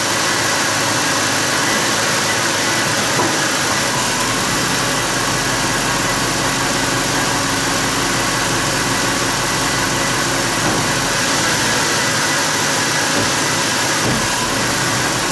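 1997 Ford F-150's engine idling steadily under the open hood while its automatic transmission is shifted through the gears with the brake held; the idle changes slightly a few times as gears engage.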